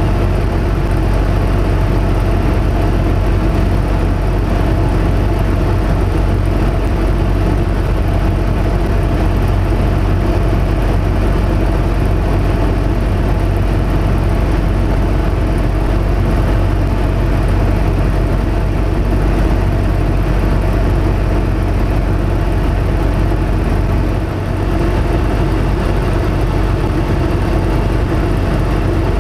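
Yak-50's nine-cylinder radial engine (Vedeneyev M-14P) and propeller running steadily in cruise flight, a loud, even drone heard inside the closed cockpit. About 24 seconds in the level dips briefly, then returns.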